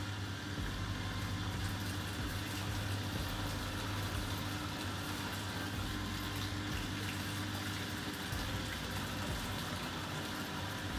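Vestel washing machine running mid-cycle: a steady low hum with water sounds over it, unchanging throughout.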